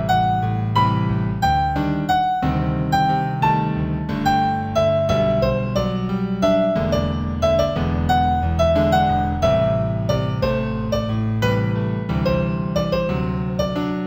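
New-age piano music in G major: a melody of struck notes, a few per second, over held low chords.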